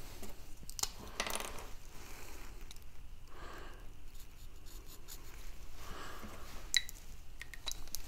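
Light handling of a short threaded steel conduit nipple as it is turned in the hands and marked with a felt-tip marker: scattered small clicks and taps, with a few short scratchy strokes of the marker, and one sharper click near the end.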